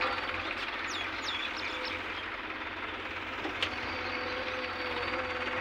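Diesel engines of farm tractors and a JCB 3DX backhoe loader running steadily at a distance. A bird gives a few short falling chirps about a second in, and there is a single sharp click a little past halfway.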